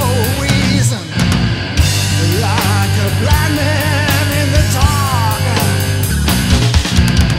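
Heavy metal song in a rough studio mix: a full band with drums, bass and distorted guitars, and a melody line sliding in pitch over the top. The band drops back briefly about a second in.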